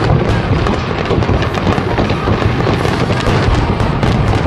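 Aerial firework shells bursting in a dense finale barrage, deep booms and sharp cracks overlapping without a break.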